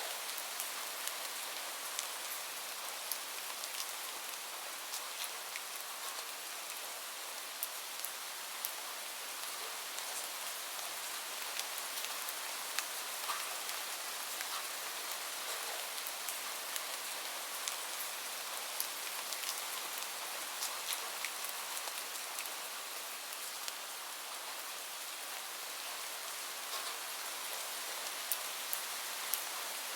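Steady rain: an even hiss with many individual drops ticking sharply at random.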